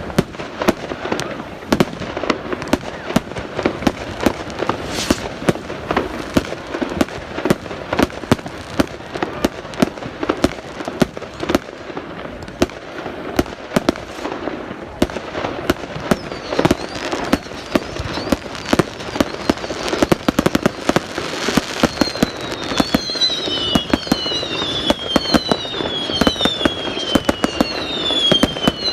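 Fireworks display: a rapid, continuous run of bangs and crackles with crowd voices underneath. About three-quarters of the way in, whistling fireworks begin, each giving a falling whistle, about one a second.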